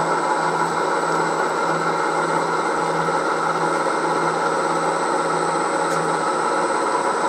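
Milling machine running steadily with a chamfering tool in the spindle, a constant motor and spindle hum; the tool is only being positioned in a dummy run, so there is no cutting noise.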